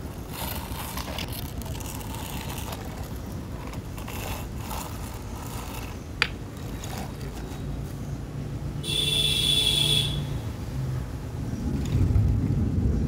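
Low rumbling noise, with a single sharp click about six seconds in and a brief high whine of a small electric motor around nine seconds in.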